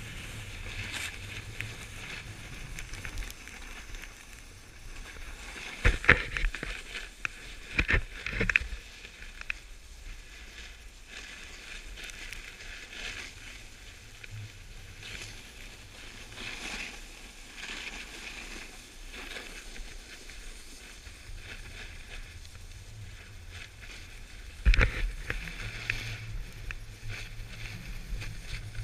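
Snowboard sliding and carving down packed snow, a steady hiss of the base and edges on the snow, with a few sharp knocks: about six seconds in, twice around eight seconds, and again near twenty-five seconds.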